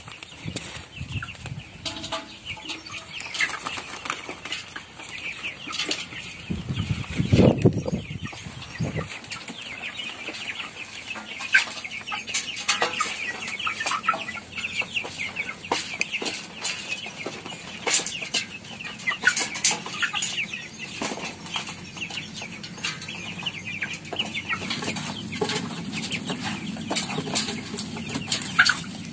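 A flock of young chickens clucking and cheeping, with many short pecking clicks and some wing flapping as they feed at a hanging feeder. A loud low noise lasting about two seconds comes about seven seconds in.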